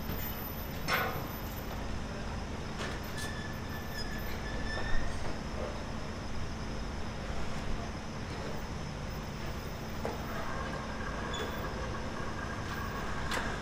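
A heavy engine running steadily, with occasional sharp metal clanks, the loudest about five seconds in, and two high squeals held for a second or more, the second one longer, near the end.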